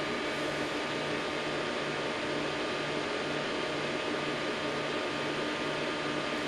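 Cooling fans of running bench electronics, likely the RF power amplifiers under heavy load, giving a steady whooshing hiss with faint steady tones. Under it, a low hum pulses on and off about twice a second.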